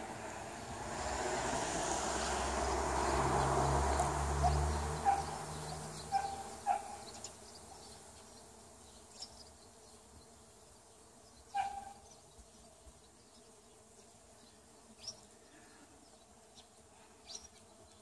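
Bees buzzing around a fruit tree in full blossom: a dense hum that swells over the first several seconds and then fades to a faint steady drone. A few short, sharp sounds stand out over it now and then.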